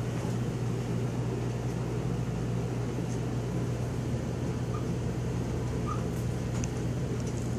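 Steady low room hum, like a ventilation or air-conditioning unit running. A few faint short squeaks from a marker writing on a whiteboard come through in the second half.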